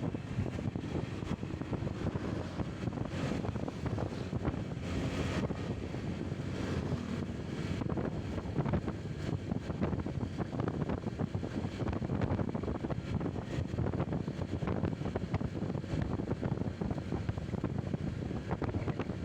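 Motorcycle riding along a road, with wind buffeting the microphone over the engine and road noise.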